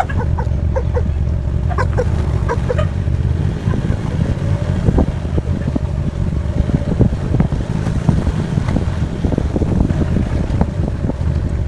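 A moving vehicle's steady low engine and road rumble, with no change in pace.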